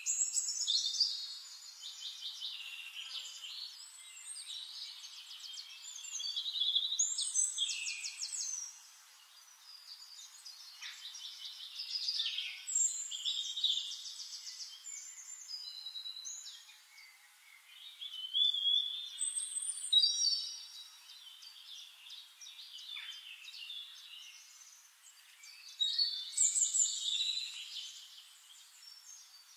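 Songbirds singing: short phrases of high, rapid trills and chirps recurring every five to six seconds over a faint hiss of outdoor ambience.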